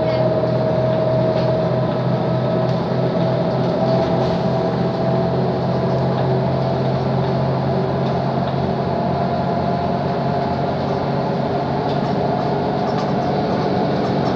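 Mercedes-Benz O 530 Citaro city bus driving along, heard from inside the passenger cabin: a steady engine and drivetrain drone with a high whine over a low hum.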